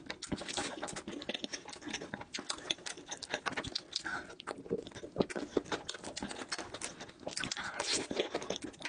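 Close-miked chewing of a mouthful of cake and chocolate dessert: a steady, irregular stream of small mouth clicks and crackles.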